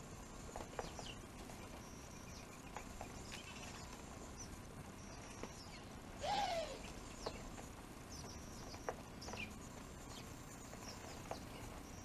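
Small birds feeding at an old rain-gutter feeder: scattered short chirps and light pecking clicks, with one louder call about six seconds in.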